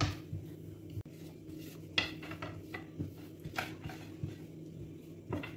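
A long, thin wooden rolling pin worked over starch-dusted dough on a countertop: soft rubbing with a few scattered light knocks and taps of the pin and hands.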